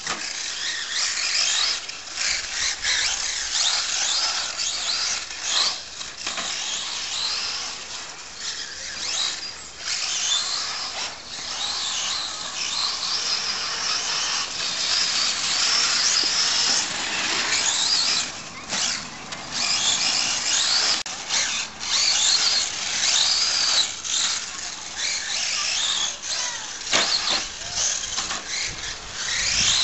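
Radio-controlled short course truck's electric motor and gears whining at high pitch, the pitch rising and falling over and over as the throttle is worked around the track.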